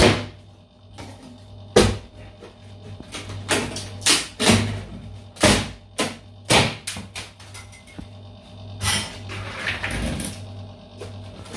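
Wooden ceiling boards being pried and pulled down: a series of irregular sharp cracks and knocks, about a dozen, with clattering as pieces come away.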